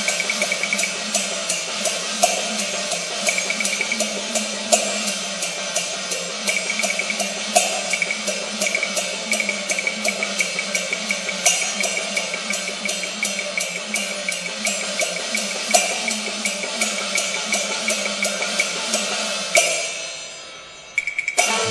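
Cantonese opera percussion, cymbals and drum, playing a fast opening passage of sharp, ringing strokes, several a second. Near the end the percussion dies away briefly and the pitched accompaniment comes in.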